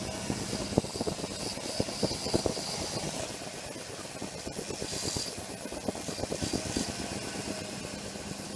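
A small machine running with a dense, irregular rattle of short clicks.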